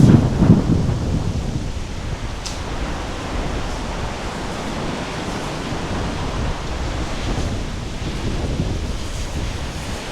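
Storm-force wind buffeting the microphone, over the rushing of storm waves on the lake, as one steady noise. A heavy gust rumbles in the first moment, then it settles to a steady rush.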